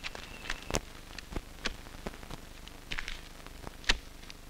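A handful of short, sharp clicks and knocks, about five of them, spaced irregularly over a faint steady hiss. The sharpest comes just under a second in.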